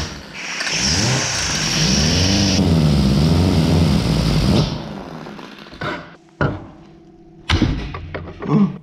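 Angle grinder with a cutting disc slicing into the steel can of an oil filter: a harsh cutting hiss over the motor, whose pitch sags and recovers as the disc bites. The cut stops after about four and a half seconds and the grinder winds down, followed by a few short knocks of the parts being handled.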